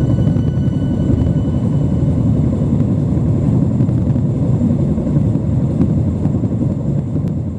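A loud, deep, steady rumbling roar with no distinct events, starting to fade near the end.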